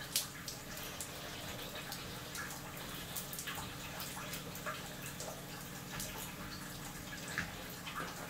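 Steam hissing and spitting through a Teflon steam hose pushed into a frozen hot-water pipe to thaw it. Scattered sharp pops and drips sound over a steady low hum, the loudest pop just after the start.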